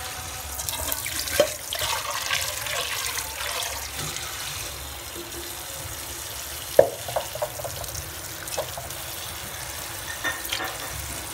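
Water running and splashing, with a few short knocks, the sharpest about seven seconds in.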